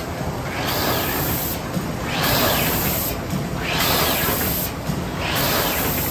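Automatic die-cutting machine running, a whooshing swell repeating about every one and a half seconds with each machine cycle over a steady mechanical hum.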